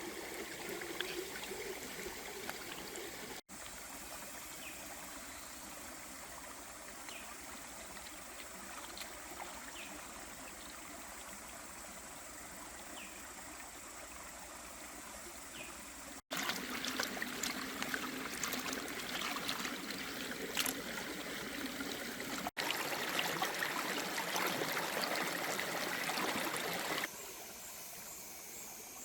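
Running water trickling steadily, in several cut-together stretches, louder in the later part.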